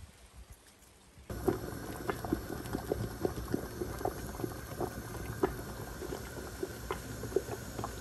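Water at a rolling boil in a large pot around lidded glass jars, bubbling with many small pops; it starts about a second in.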